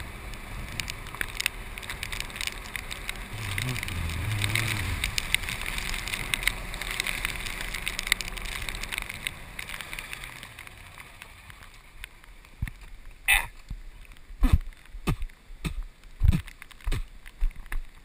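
Golf cart driving on a wet road: a steady hum with a hiss from the wet surface, the motor's pitch rising and falling about four seconds in. It quiets about ten seconds in, and then a series of sharp knocks and rubs come as a hand wipes raindrops off the camera lens.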